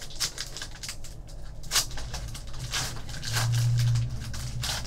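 Foil wrapper of a trading-card pack crinkling and tearing open in a run of sharp crackles. A brief low hum sounds about three seconds in.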